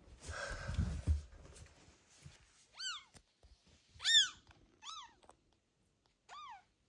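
Newborn kitten mewing: four short, high cries, each rising then falling in pitch, the loudest about four seconds in. Before them, in the first second and a half, a burst of rustling noise with low bumps.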